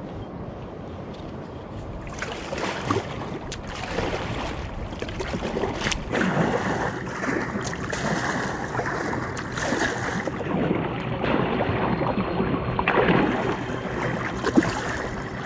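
Water sloshing and splashing against a kayak, with wind on the microphone and a few sharp knocks, the loudest near the end.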